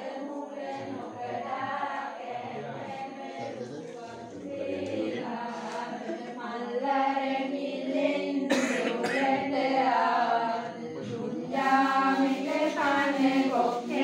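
A group of voices chanting together in unison, a steady devotional recitation, growing louder about halfway through.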